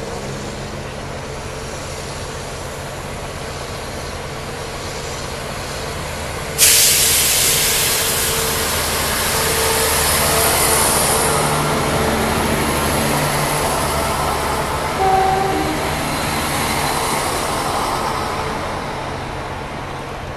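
Class 171 Turbostar diesel multiple unit running past: a steady hum from its underfloor diesel engines as it approaches, then a sudden loud hiss about a third of the way in as it comes alongside, slowly fading as the train moves away.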